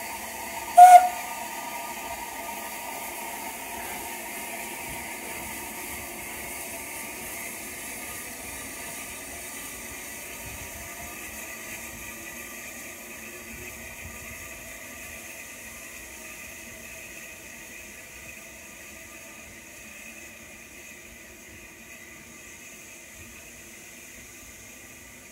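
Steam locomotive 30925, an SR Schools class 4-4-0, gives a short whistle toot about a second in, then its steam hisses steadily and fades gradually as the engine draws away from its coaches after uncoupling.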